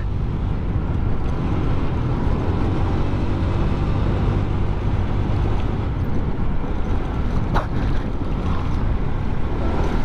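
Honda Click 125i scooter under way, its single-cylinder engine running steadily beneath wind and road noise. A short click about seven and a half seconds in.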